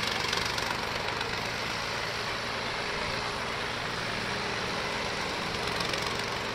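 Farmtrac 60 tractor's diesel engine running steadily under load as it pulls a seeding and disc implement through tilled soil.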